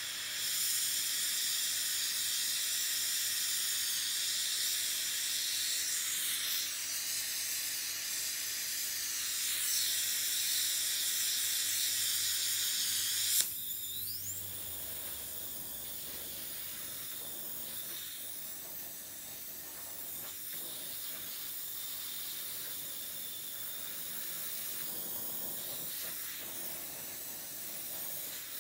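Oxy-fuel torch flame hissing steadily as it heats a small crucible. About halfway through there is a sharp pop, after which the hiss is softer.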